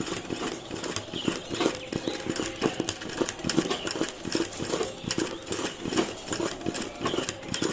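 Ordinary domestic sewing machine stitching applique embroidery: a rapid, uneven clatter of needle strokes.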